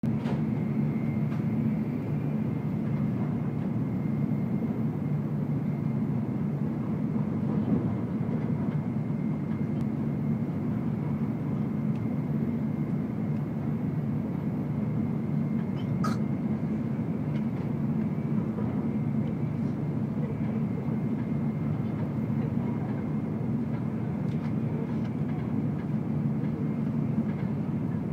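N700 series Shinkansen train running at a steady speed: an even low rumble with a faint steady high whine, and a single click about 16 seconds in.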